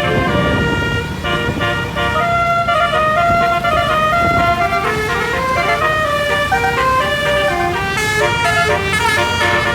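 A 12-note 'telolet' multi-trumpet bus horn playing a tune in stepped notes over the low rumble of the bus engine, with quicker, shorter notes near the end.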